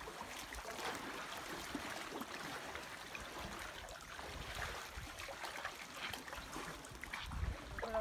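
Shallow seawater splashing and trickling around the feet of people wading along a rocky shore, with scattered small splashes and a low rumble near the end.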